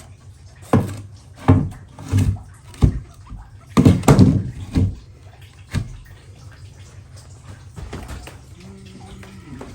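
A run of hard knocks and clunks, about seven in the first six seconds, the loudest around four seconds in. Near the end a faint low hum comes in.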